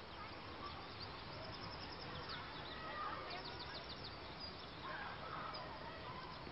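Quiet outdoor ambience with birds calling, including quick high trills about two and three seconds in.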